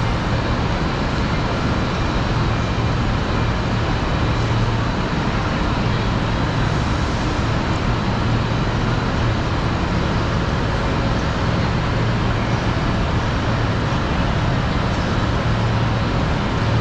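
Steady rumble of road traffic with a low, even engine hum.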